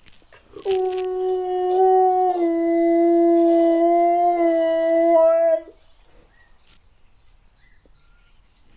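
Siberian husky howling: one long howl of about five seconds, starting just over half a second in, held at a steady pitch with a slight drop partway through.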